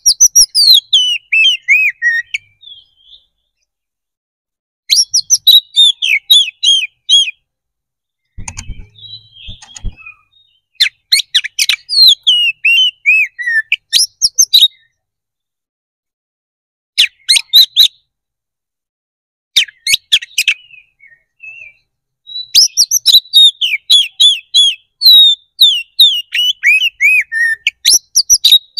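Oriental magpie-robin (kacer) in full, roused song: loud phrases of quick whistled notes that sweep down in pitch, a few seconds each with short pauses between them, and a long unbroken phrase near the end.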